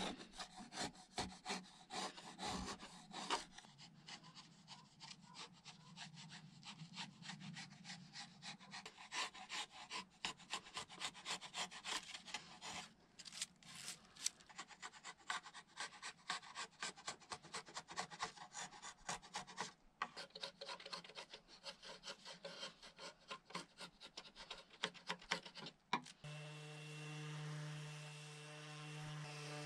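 Hand chisel paring thin shavings from a wooden trim strip, in quick repeated scraping strokes with a few short pauses. Near the end a Makita random orbit sander switches on and runs with a steady hum.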